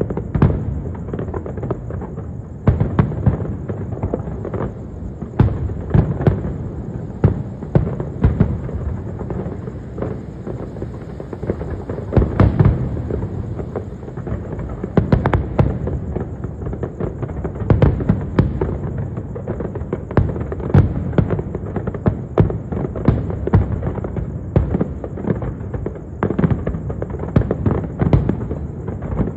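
Fireworks going off in a continuous barrage: irregular bangs and crackles with louder booms every second or two, over a constant rumble.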